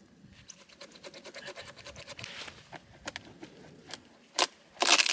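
Small saw blade of a Swiss Army knife sawing through wood: quick rasping strokes, with a few louder strokes near the end.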